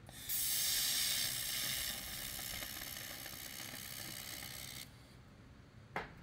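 Handheld laser welder firing: a steady sizzling hiss of the weld and its argon shielding gas lasting about four and a half seconds, then cutting off abruptly. A single sharp click near the end.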